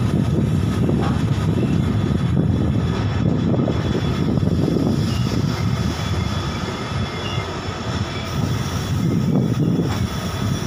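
Freight train of flat wagons loaded with lorries passing close by on the adjacent track: a steady, loud low rumble of the wagons' wheels running on the rails, easing slightly about two-thirds of the way through.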